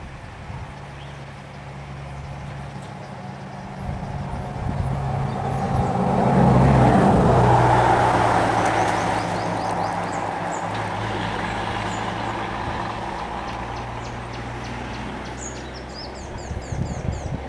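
Diesel bus engine running, swelling to its loudest about six to eight seconds in as it revs and pulls away, then easing to a steady running sound.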